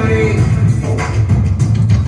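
Music with a steady drum beat over a strong bass line; a melody line ends just after the start.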